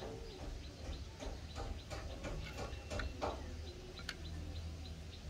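Faint, irregular light clicks, turning about four seconds in into a steady run of small high ticks, about three a second, over a low steady hum.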